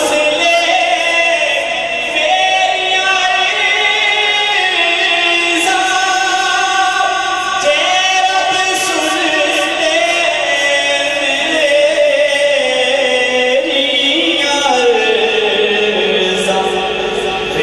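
A man's voice singing an Islamic devotional melody into a handheld microphone, drawing out long, ornamented notes that slide up and down in pitch.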